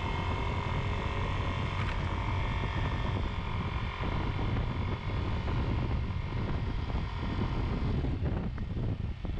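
2022 Yamaha Zuma 125 scooter's single-cylinder four-stroke engine running steadily while riding at road speed, with wind noise on the microphone.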